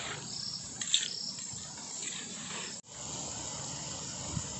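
Insects chirping steadily in the background, with one sharp click about a second in. The sound cuts out for a moment about three seconds in.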